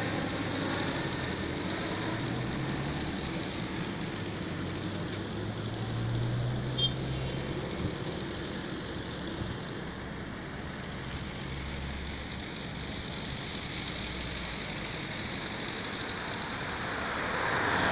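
Steady rumble of distant road traffic, with low engine hum coming and going, swelling louder near the end.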